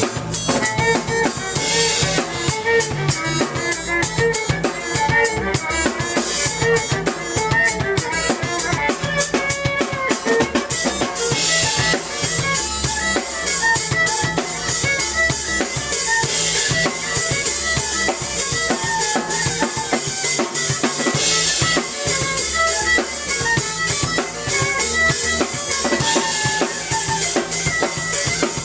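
Live band music from a trio of drum kit, keyboard and violin playing an electronic-rock groove: a driving drum beat over a stepping keyboard bass line and melody, with bright crashes every few seconds.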